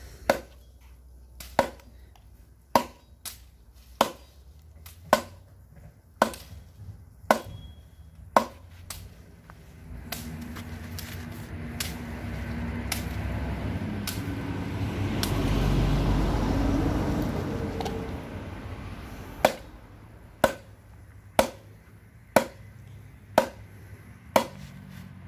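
Machete blade chopping into a log: sharp strikes about once a second, eight in a row, then a pause of about ten seconds in which a low rumbling noise swells and fades, then the strikes resume about once a second.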